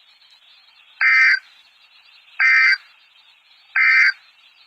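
NOAA Weather Radio SAME digital data signal: three short bursts of data tones about 1.4 s apart, the end-of-message code that closes a warning broadcast. A faint radio hiss runs underneath.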